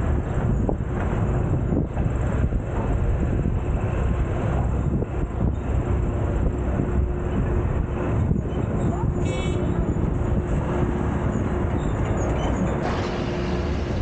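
Midtown street traffic heard from a camera on a car's roof while driving: a steady rumble of road and traffic noise, with a faint steady hum coming in about halfway through and a brief high squeal a little after that.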